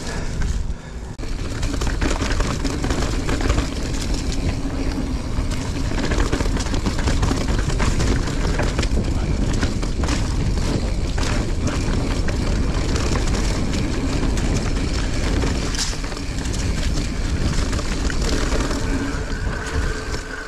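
Mountain bike ridden along a dirt trail: a steady rumble of tyres and wind, broken by many short rattles and knocks from the bike.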